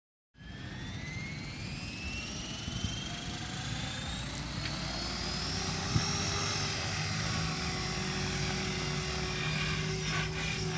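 The motor of a small flying aircraft whines, rising steadily in pitch for about six seconds and then holding steady, while strong wind rumbles on the microphone.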